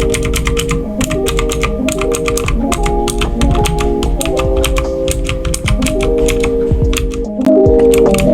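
Rapid, irregular keystrokes clacking on a budget mechanical keyboard, over background music whose chords change about once a second.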